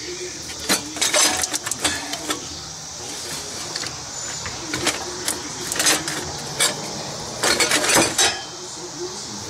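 Irregular metal clanks, knocks and rattles in several short clusters with pauses between, as metal parts and tools are worked by hand.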